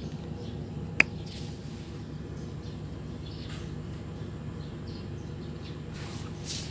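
A single sharp plastic click about a second in: the blue cable connector of the solar street light snapping home. Steady low background noise runs underneath.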